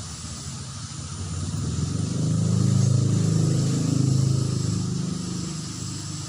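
A motor vehicle passes by, its low engine rumble swelling over about two seconds, peaking midway, then fading away, over a steady background hiss.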